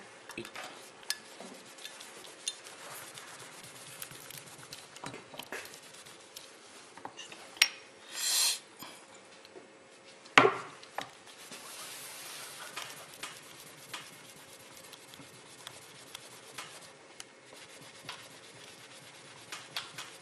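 Tissue or cloth being rubbed and wiped over a small metal test piece on a workbench: a scratchy rubbing with small clicks and knocks. There is a short hiss about eight seconds in and a sharp knock about ten seconds in.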